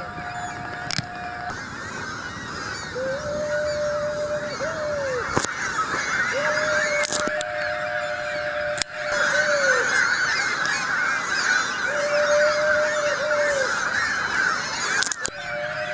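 A colony of seagulls calling continuously, many birds at once, with several long drawn-out calls that drop off at the end. A few sharp knocks break in.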